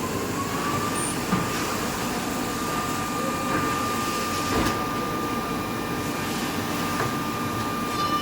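CNC machine running: a steady mechanical hum under a high whine that rises slightly in the first second and then holds level, with an occasional short knock.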